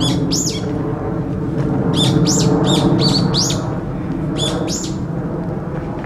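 Brown-eared bulbul calling in shrill, sharply rising-and-falling notes, in short bursts of two to five, which the uploader takes for an earthquake-warning call. A loud, steady low background rumble runs underneath.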